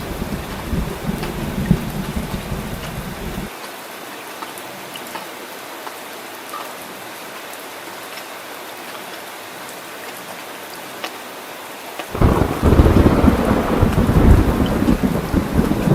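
Heavy rain falling steadily, with rolling thunder. The thunder's deep rumble drops away abruptly about three and a half seconds in, leaving only the rain's hiss. A loud new peal of thunder breaks in suddenly near the end and keeps rumbling.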